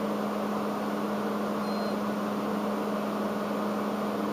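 Steady hum of running electronic test equipment: cooling-fan noise with a strong, steady low tone.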